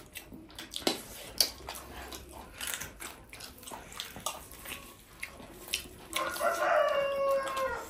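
Wet chewing and mouth smacks of someone eating tough, spicy buffalo meat, heard as many short clicks. About six seconds in, a drawn-out high-pitched call begins, its pitch slowly falling, and lasts almost to the end.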